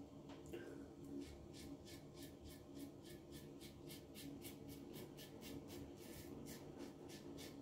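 Gillette New Short Comb open-comb safety razor with a Gillette Nacet blade cutting stubble through lather in short, quick strokes. It makes a faint, rhythmic scraping of about four strokes a second, starting about a second in.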